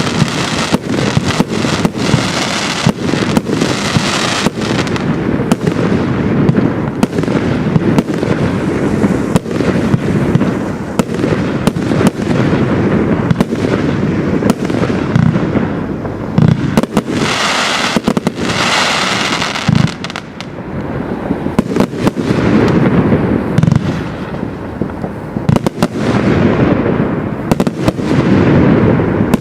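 Compound firework cake firing continuously: a dense, rapid run of shots and bursts with scarcely a break.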